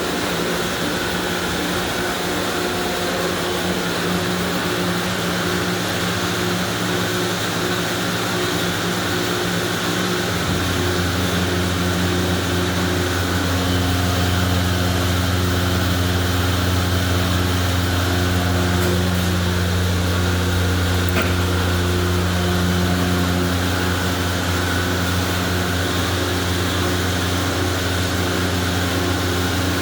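Car wash machinery running steadily: a broad hiss under several steady motor hums, with a deeper hum starting suddenly about ten seconds in and holding.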